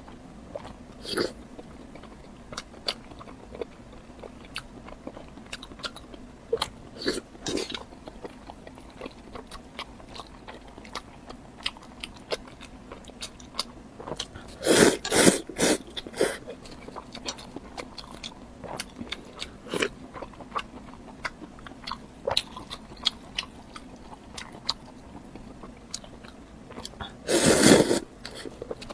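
Close-up eating sounds: biting, chewing and crunching food with wet mouth clicks. Two louder stretches of crunching come about halfway through and near the end.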